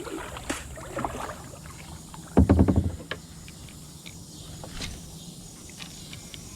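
Knocks and clicks of gear being handled in a kayak, with one louder clattering knock lasting about half a second two and a half seconds in.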